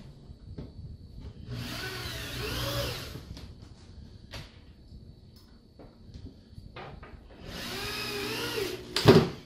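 Corded power drill run twice into plywood, about a second and a half each time, its pitch wavering as the motor loads up, with small clicks between the runs. A sharp knock comes right after the second run, just before the end.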